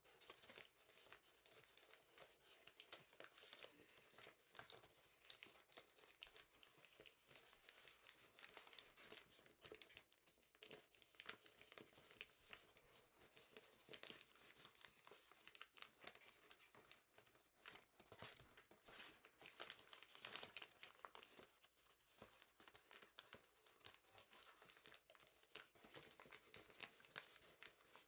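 Faint crinkling and rustling of a large sheet of origami paper being handled and refolded along its creases, with many small crackles throughout.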